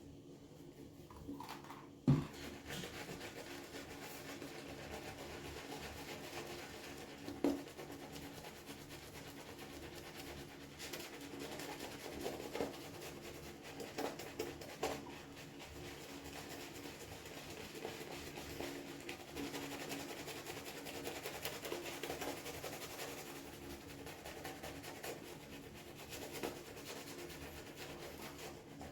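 Shaving brush swirled and scrubbed through Mitchell's Wool Fat soap lather: a steady wet rubbing. There is a sharp knock about two seconds in and a lighter click a few seconds later.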